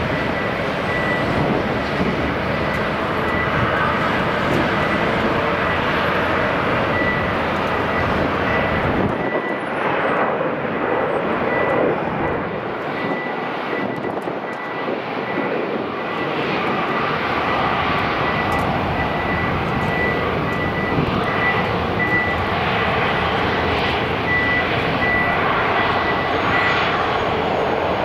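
Airbus A321-211's twin CFM56-5B turbofans at takeoff thrust, a steady jet roar with a thin high whine, as the airliner rolls down the runway, lifts off and climbs away.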